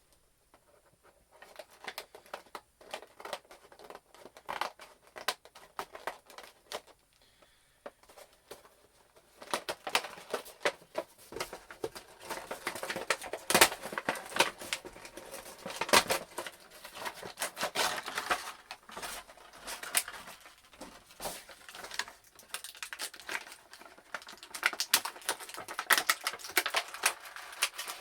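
A boxed action figure's cardboard and plastic packaging being opened by hand: irregular tearing, crinkling and clicking. It is sparse at first and grows busier and louder about a third of the way in.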